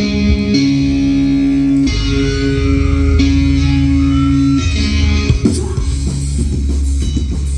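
Rock band's instrumental intro: guitar playing held, ringing chords that change every second or two, with the drum kit coming in on a steady beat about five and a half seconds in.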